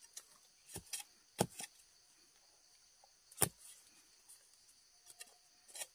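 A hand digging spade chopping into earth in several irregular strikes, the loudest about three and a half seconds in, over a steady high chirring of insects.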